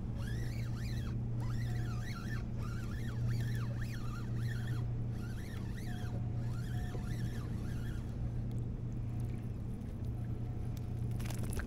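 A steady low engine drone, like a motorboat's, runs throughout, with faint high chirping calls over it for the first eight seconds and a single click near the end.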